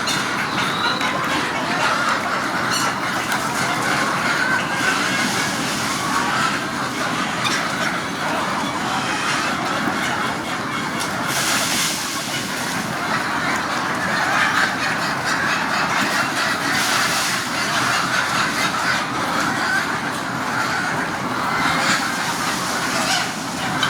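Continuous din of a flock of chickens clucking and calling all at once.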